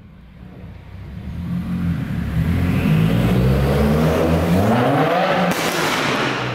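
Subaru WRX's turbocharged flat-four accelerating hard through a Tomei Expreme titanium single-exit exhaust, its note climbing in pitch as it drives past, echoing off the concrete of a parking garage. About five and a half seconds in the rising note breaks off into a sudden rush of hiss.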